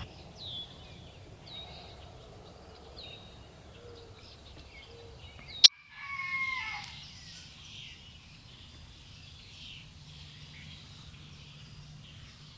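Outdoor birdsong: a songbird repeating a short down-slurred chirp about once every second or so. About halfway through there is one sharp click, followed at once by a rooster crowing for about a second, with birds chirping on afterward.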